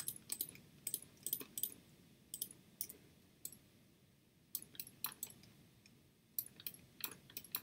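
Computer mouse and keyboard clicking: a string of short, irregularly spaced clicks while points of a lasso selection are placed, with a keystroke on the X key among them.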